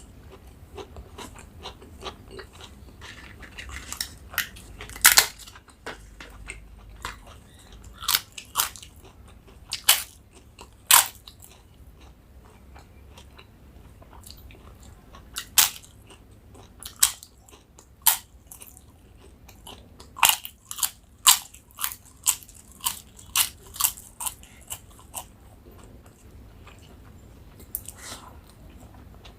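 A person eating crisp food close to the microphone: sharp, loud crunches of biting in clusters, with quieter chewing between them. The crunches come in runs, about four and five seconds in, again from about eight to eleven seconds, around fifteen to eighteen seconds, in a quick string from about twenty to twenty-five seconds, and once more near the end.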